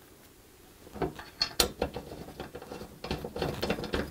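Irregular clicks and light metal clinks of small screws and a steel TV wall-mount bracket being handled and fitted together, starting about a second in and coming thicker near the end.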